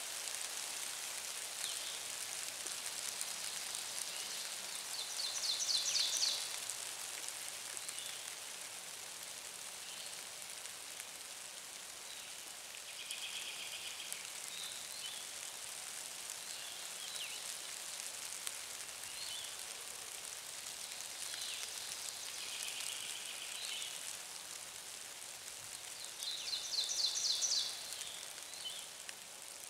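Songbirds singing in spring woodland over a steady background hiss. A fast trilled phrase stands out twice, about five seconds in and again near the end, with softer chirps in between.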